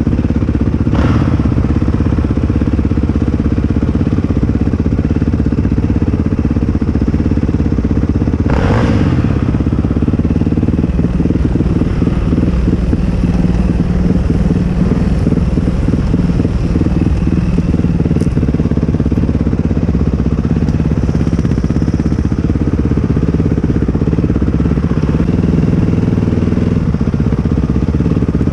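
ATV engine running steadily, with two brief sharp noises, about a second in and near nine seconds, and a choppy, fluttering stretch in the middle.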